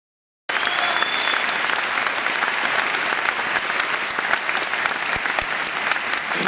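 A large crowd applauding: dense, steady clapping that cuts in abruptly about half a second in.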